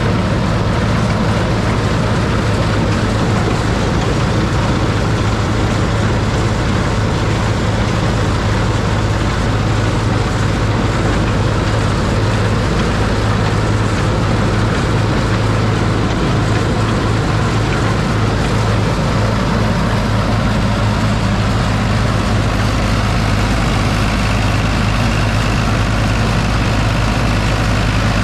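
John Deere 820 tractor engine running steadily under load, pulling a New Holland 489 haybine mower-conditioner as it cuts sorghum-sudangrass.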